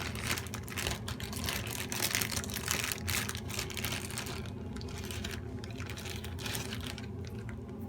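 Plastic zip-lock bag being opened and handled: rapid crinkling and clicking, dense for the first few seconds, then sparser.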